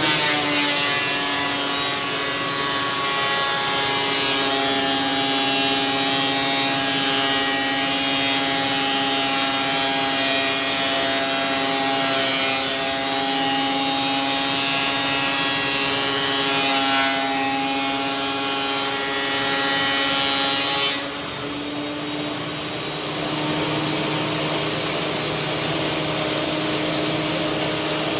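WEN 6550 thickness planer cutting rough-cut pine: the motor runs under load at a slightly lowered pitch, with a hissing cut over its hum. About 21 seconds in the board clears the cutterhead; the machine gets a little quieter and its hum rises as it runs free.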